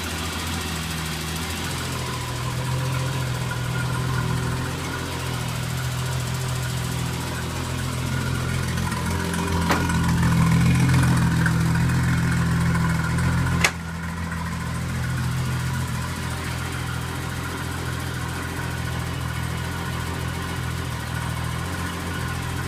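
BMW E30's 3.5-litre turbocharged engine idling steadily just after a cold start following long storage, louder for a few seconds in the middle. A single sharp click comes about two-thirds of the way through.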